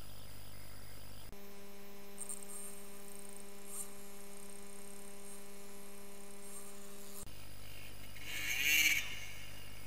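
A steady hum. Near the end, the two-stroke engine of a Yamaha DT 125 enduro bike gives a short rev that rises and falls in pitch as the bike lifts onto a log pile.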